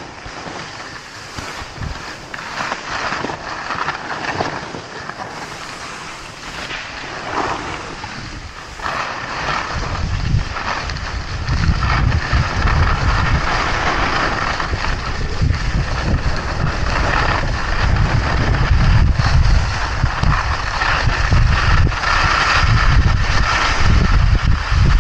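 Skis sliding and scraping over snow on a downhill run, with wind buffeting the camera's microphone. The wind rumble comes in strongly about ten seconds in, as speed builds, and stays loud.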